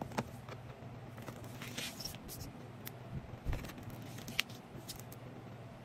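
Hands handling rubber mold discs and a clear plastic sheet on a workbench: scattered light taps and clicks, with a short rustle of sliding plastic about two seconds in, over a faint steady hum.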